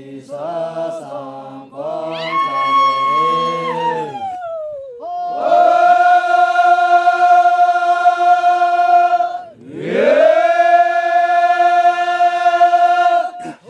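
Makury Naga men singing unaccompanied in harmony: a few short phrases, a falling slide, then two long, loud held high notes, the second swooping up into pitch.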